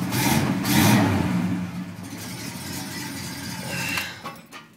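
1969 Oldsmobile Cutlass engine running through its Flowmaster exhaust, louder in the first second, then steady before fading out near the end. The owner says the engine is strong but has a head gasket leaking on the right side and needs a rebuild.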